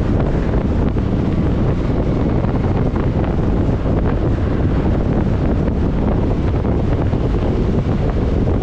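Steady wind rushing over the microphone of a camera on a moving motor scooter, mixed with the scooter's running and road noise.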